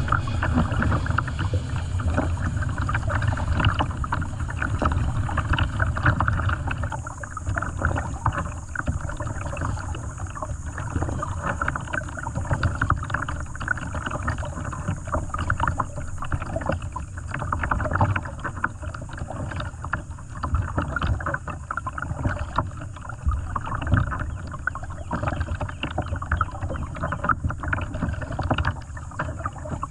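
Water splashing and rushing around a kayak on a river, a dense crackling wash with a steady low rumble underneath.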